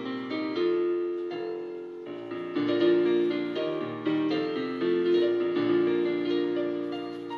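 Background piano music: a slow melody of single notes and chords that each ring and fade.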